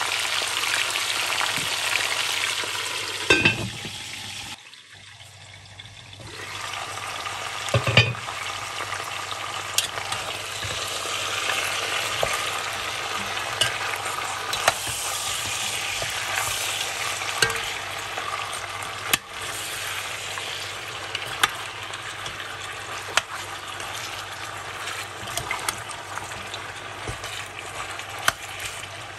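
Goat meat sizzling in hot oil in an enamelled cast-iron Dutch oven, with scattered clicks and knocks of a metal spoon against the pot as the meat is stirred. The sizzle briefly drops quieter about five seconds in.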